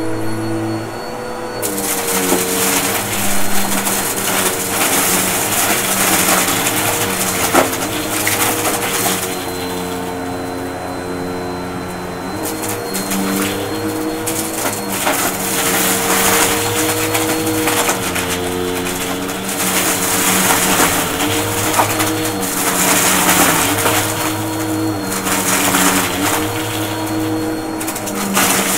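Upright vacuum cleaner running over a shag rug and sucking up a crunchy mix of small plastic bottle caps and beads, with dense rattling and crackling over a steady motor hum. The crunching swells and eases every few seconds as the vacuum is pushed back and forth.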